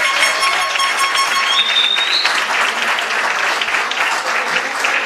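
Crowd applauding: a dense run of handclaps, with a brief high tone rising about two seconds in.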